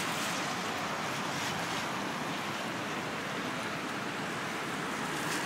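Steady street traffic noise: an even rushing hiss with no distinct events.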